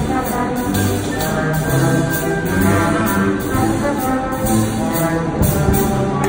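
Military band playing live: clarinets and brass sounding held chords with a melody moving above them.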